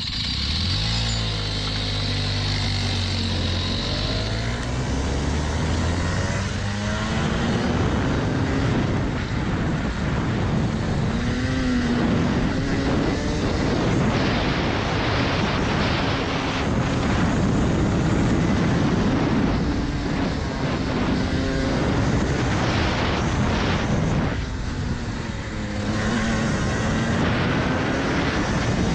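Rotax Max Senior 125, a single-cylinder two-stroke kart engine fitted with a restrictor, heard from the driver's seat pulling away from a standstill and revving up, then its pitch rising and falling as the throttle is opened and lifted through the corners. Near the end the revs drop briefly and then climb again.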